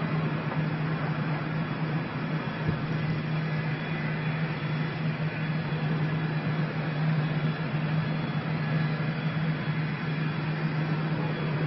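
A steady mechanical drone: a constant low hum under even engine-like noise, with no bangs or breaks.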